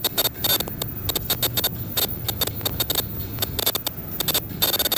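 Semi-automatic tie-on mask machine running: rapid, irregular mechanical clicks and clacks over a steady low hum, some clicks carrying a brief high-pitched tone.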